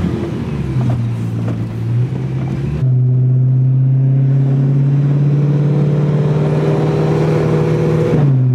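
Car engine running at a steady cruise, heard from inside a convertible as it drives slowly down a street, with the engine note dropping slightly in pitch near the end.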